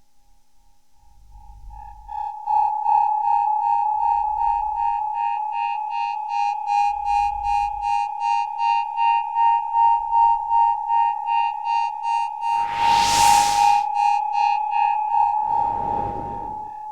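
Electronic synthesizer sound effect: a steady high-pitched tone swells in about two seconds in and pulses about twice a second. Low thuds sound about every three seconds, and a loud whoosh of noise comes about thirteen seconds in, with another near the end.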